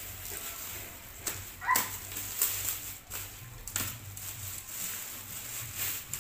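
Plastic bag wrapping crinkling and packing tape ripping as a taped parcel is torn open by hand, in irregular sharp rustles. A short rising squeak comes about two seconds in.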